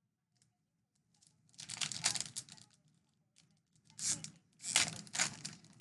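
A trading-card pack's foil wrapper being torn open and crinkled, in three rustling bursts about a second and a half, four and five seconds in.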